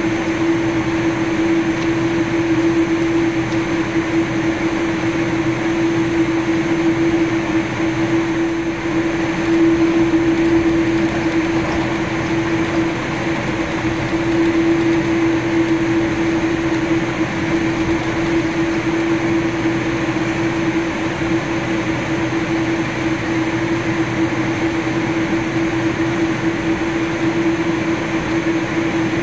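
Airliner cabin noise while taxiing: a steady rush of ventilation air with a constant hum from the engines at idle, unchanging throughout.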